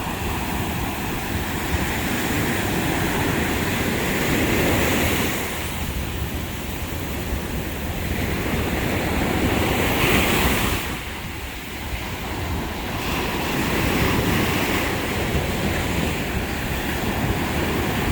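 Caribbean Sea waves breaking and washing up on a beach, the surf swelling and ebbing every few seconds, with wind buffeting the microphone.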